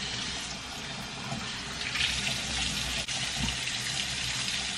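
Kitchen tap running into a stainless-steel sink: a steady splashing rush of water, a little brighter from about two seconds in.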